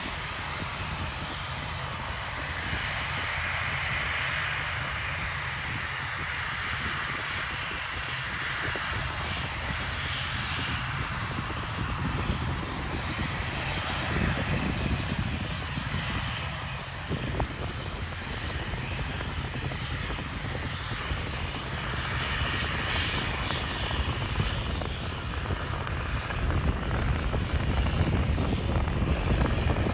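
Fixed-wing aircraft engines running, a steady rushing roar that grows louder toward the end.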